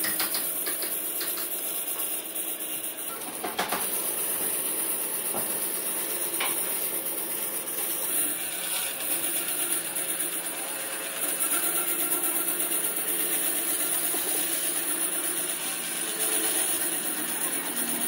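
Bandsaw running steadily, its blade cutting through a thick block of burl wood.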